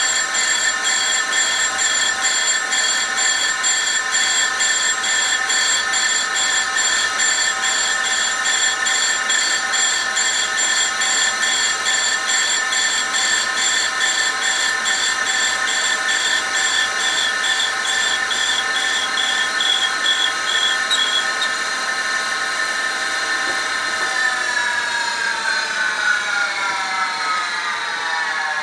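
Grinder running with its wheel grinding the work: a steady whine with a fast, even pulsing in the high tones that stops about three-quarters of the way through. Near the end the whine falls steadily in pitch as the machine spins down.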